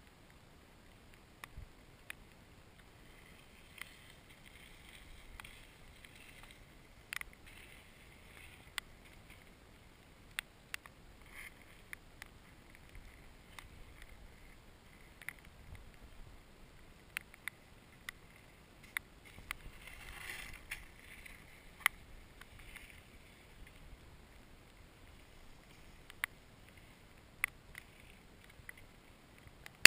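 Faint background hiss with scattered sharp ticks and taps close to the microphone, roughly one every second or two, with a slightly louder rustling patch about twenty seconds in.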